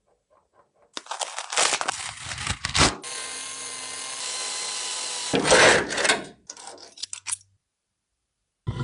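Workshop tool sounds: rough scraping strokes, then a small power tool running steadily for about two seconds, then a loud grinding burst and a few clicks before it goes quiet.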